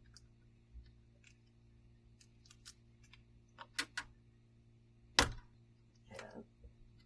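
Light plastic clicks of the printer's hard-drive mounting clips being worked loose, a few louder ones near four seconds in, then one sharp snap a little after five seconds as a clip lets go, followed by a short scrape.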